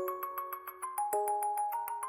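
Background music: a light melody of quick, evenly repeated bell-like notes.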